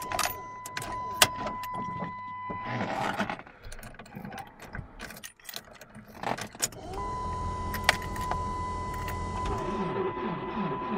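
Car keys jangling and clicking at the ignition of a Saturn SC2 before a cold start, with the engine not yet turning over. A steady high electronic warning tone sounds, breaks off for a few seconds midway, then comes back, and a low hum sets in about seven seconds in.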